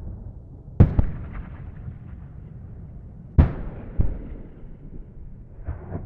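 Distant combat explosions: two sharp booms close together about a second in, another pair a little after three seconds, and a fainter one near the end, each trailing off in a rumble over a steady low background rumble.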